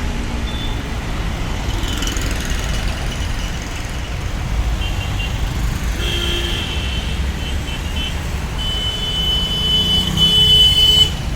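Road traffic rumbling steadily, with thin high-pitched tones sounding on and off over it in the second half.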